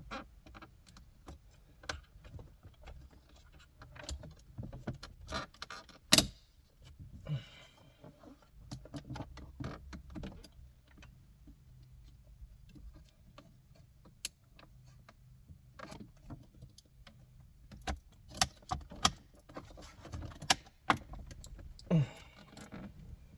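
Cadillac CTS V-Sport's radio trim panel being pried and worked loose around its tight clips by hand: scattered clicks, knocks and rattles, with one sharp knock about six seconds in and a run of knocks near the end.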